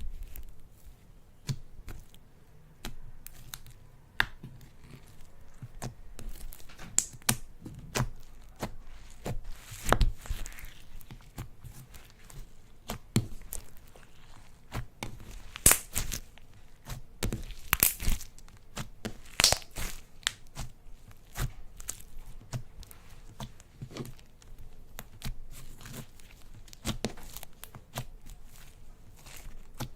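Slime being squished and stretched by hand, giving an irregular run of sticky clicks, pops and tearing sounds, with a few louder pops now and then.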